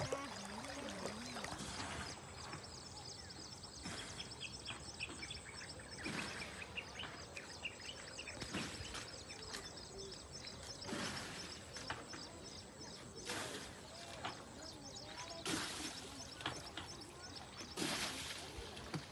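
Open-air ambience with small birds chirping again and again over a steady hiss, broken by several louder rushes of noise lasting about a second each.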